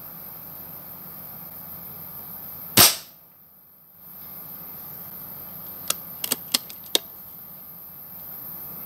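Hatsan AT44-10 PCP air rifle firing a single shot, a sharp report about three seconds in. About three seconds later come five short, quick clicks.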